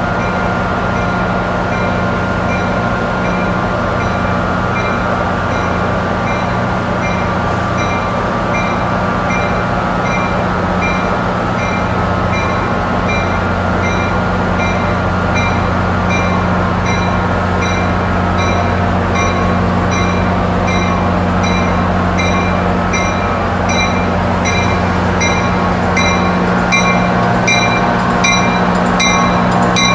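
Arriving commuter train's warning bell ringing in an even rhythm, a little more than once a second, as the train creeps into a terminal track, over a steady low drone of idling locomotive engines. The bell grows slightly louder near the end as the train draws closer.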